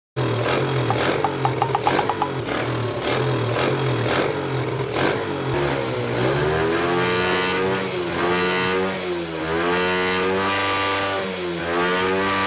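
Motorcycle engine revving. It runs with a steady pulsing beat for the first several seconds, then the throttle is opened and closed again and again, so the engine pitch rises and falls several times.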